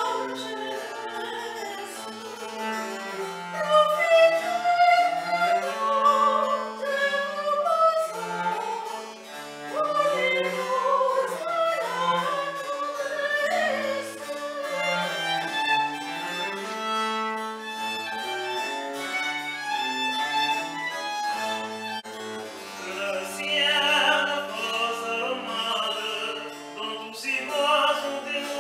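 A woman sings a baroque operatic air, accompanied by harpsichord and cello playing a continuous bass line.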